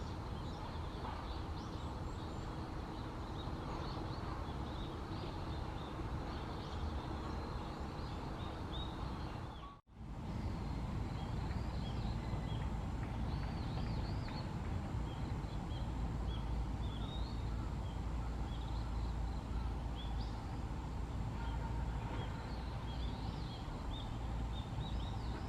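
Many short, high chirps and twitters of small songbirds over a steady low background rumble. The sound cuts out for an instant about ten seconds in, then the chirping continues.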